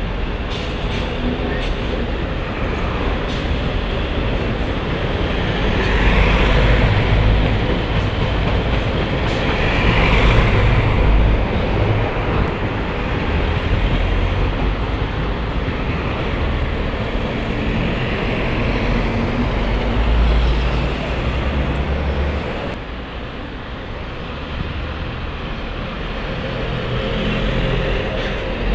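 Street traffic: diesel city buses and cars driving past, a steady low engine and road noise that swells several times as vehicles pass close, with a bus passing near the end.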